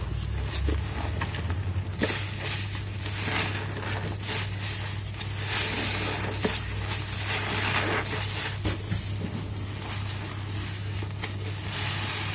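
Soap-loaded foam sponges, cut from mattress foam, squeezed over and over by gloved hands: wet squelching with the hiss and fizz of thick suds in repeated surges.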